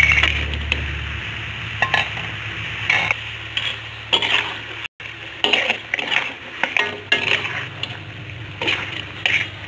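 Metal spatula scraping and clinking against a wok in repeated short strokes as pieces of fried fish are turned through thick sambal sauce.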